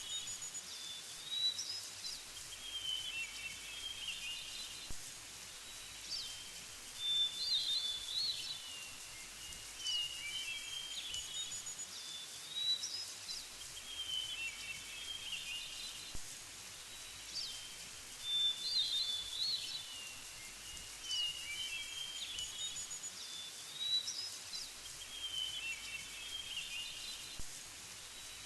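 Birds chirping and whistling over a faint outdoor hiss, short high calls coming in clusters that recur in a similar pattern every several seconds.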